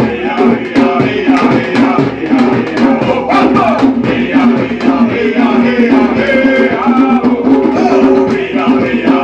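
Drum-circle music: hand drums keeping a steady beat under group singing.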